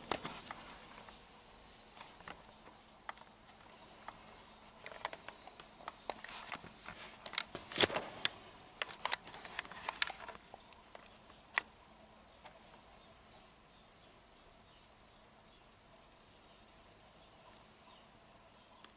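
Miele W1 front-loading washing machine draining its first rinse water, with the wet laundry in the drum: irregular clicks and knocks over the first ten seconds or so, the loudest about eight seconds in, then only a faint steady hum of the machine.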